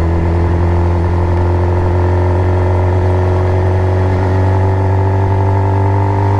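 Suzuki GSX-R 750's inline-four engine running steadily under light throttle at low road speed, its pitch holding level and rising slightly near the end.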